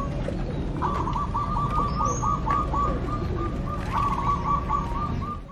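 Caged zebra doves (perkutut) cooing: long strings of short, quick staccato notes at about five a second, one run after another.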